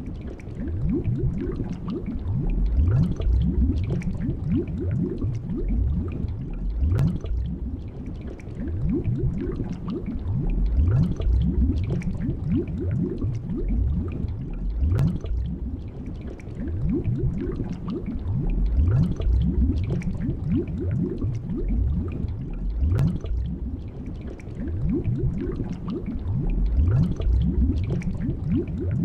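Underwater bubbling ambience: a dense stream of low gurgling bubbles, each rising briefly in pitch. It swells and eases about every four seconds.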